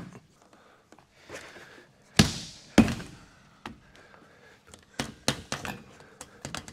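A pre-hung exterior door swinging shut in its new frame with a heavy thunk about two seconds in, and a second sharp knock just after. Then a run of lighter knocks and taps as hands press and pat the frame into a very tight opening.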